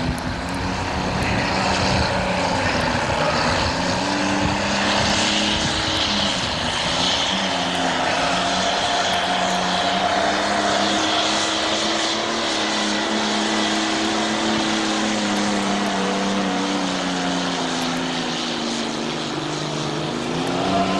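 Modified pulling tractor's engine running flat out as it hauls a weight-transfer sled, a steady loud drone whose pitch climbs slowly through the first half and sags gradually through the second.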